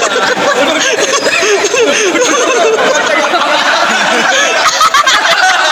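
Onlookers' overlapping chatter and laughter echoing in a large gym hall, no single voice clear.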